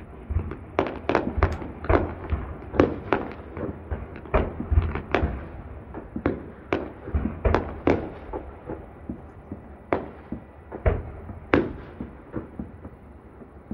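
Fireworks display: aerial shells bursting in a rapid, irregular series of bangs, which thin out to a few spaced bangs after about nine seconds.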